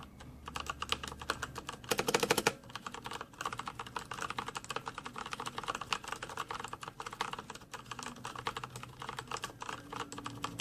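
Keys being typed on a Patriot Viper V760 mechanical keyboard with Kailh Brown switches: a steady stream of key clicks, with a fast, louder flurry about two seconds in.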